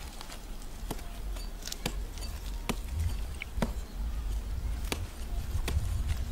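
Knife slitting a snake's belly open along its belly scales, with sharp clicks about once a second over a low rumble.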